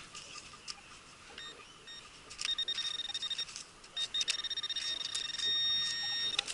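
Metal detector's electronic target tone: a high beep that pulses rapidly, then sounds almost continuously, signalling metal close to the search coil or probe. A few faint clicks come before it.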